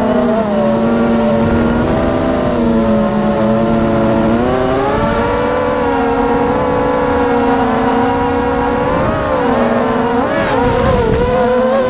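Electric motors and propellers of a 250-size FPV racing quadcopter whining steadily, several pitches together that dip and rise with the throttle and waver near the end, recorded by the camera on board the drone.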